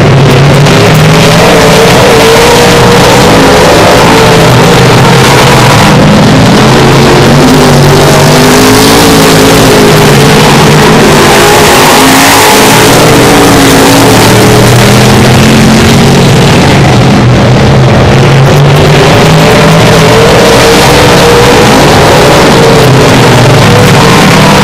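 A pack of dirt-track stock cars racing at full throttle, very loud and steady. Several engine notes waver up and down as the cars lift and accelerate around the oval.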